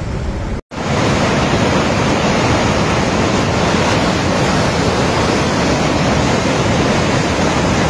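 Loud, steady rush of fast-flowing floodwater, starting after an abrupt break less than a second in.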